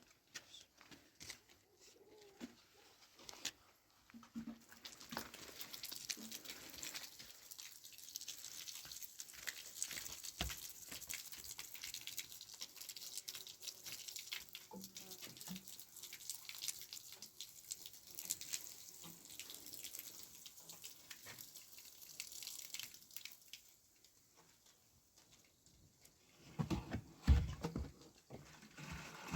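Water splashing and trickling with many small clicks and drips, dying down past the middle; near the end, a couple of loud dull thumps.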